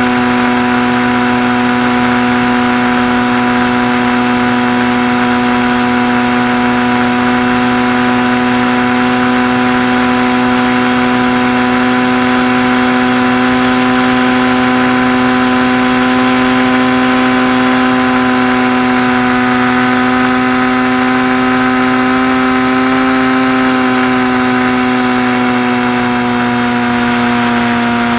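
Electric motor and propeller of a Skywalker RC plane giving a steady hum over a rush of noise. The pitch rises a little about two-thirds of the way in, then drops back near the end as the throttle changes.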